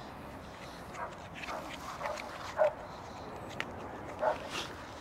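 A dog barking repeatedly in short separate barks, about six in all, the loudest about two and a half seconds in.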